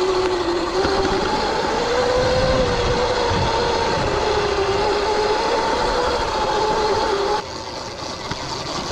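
Stock Sur-Ron X electric dirt bike riding under power: a steady electric motor and drive whine that drifts up and down in pitch with speed, over a broad rush of noise. About seven seconds in the whine stops and the sound drops, as the throttle is let off.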